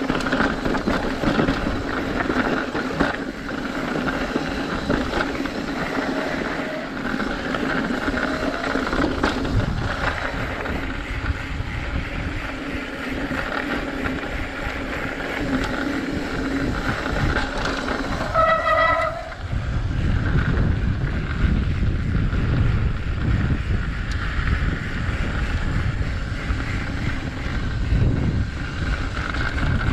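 Mountain bike riding a dirt trail, heard from a GoPro action camera: tyres rolling and the bike rattling under a steady wavering hum. A brief high squeal comes about two-thirds through, followed by heavier wind rumble on the microphone.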